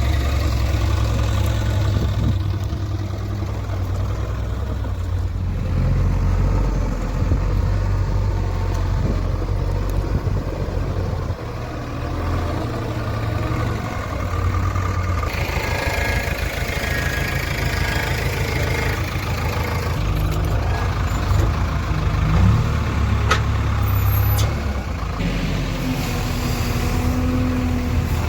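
JCB 3DX backhoe loader's diesel engine running steadily while the machine drives, its note changing several times.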